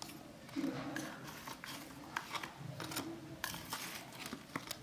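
Knife clicking and scraping against a steel plate as squares of set ajwain barfi are cut and prised up, in a string of small irregular scrapes and taps.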